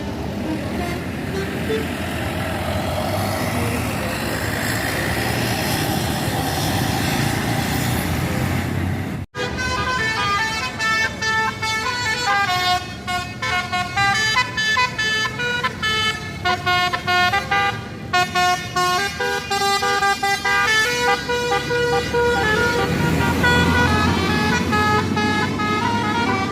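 Vehicle engine noise and voices, then, after a sudden cut about nine seconds in, a bus's basuri 'telolet' multi-tone horn playing a tune of quickly stepping notes, with the engine running beneath it.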